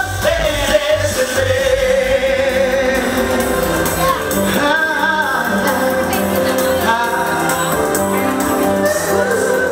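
Pop song performed live by a male vocal group singing into microphones over amplified accompaniment, with long held sung notes.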